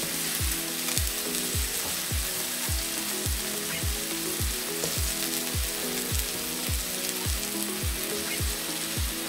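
Beef tteok-galbi patties sizzling in cooking oil in a frying pan, a steady hiss, under background music with a steady beat.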